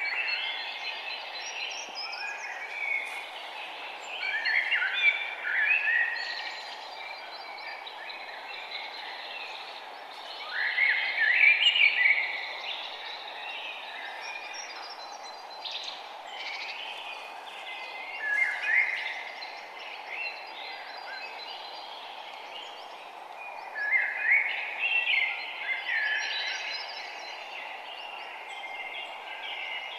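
Songbirds singing in a forest: bursts of warbling, twittering song every few seconds, loudest about a third of the way in, over a steady background hiss.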